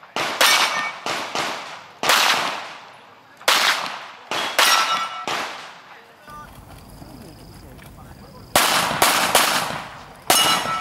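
About a dozen pistol shots fired in quick, uneven strings, with a pause of about three seconds past the middle. Some shots are followed by a short metallic ring from steel plate targets being hit.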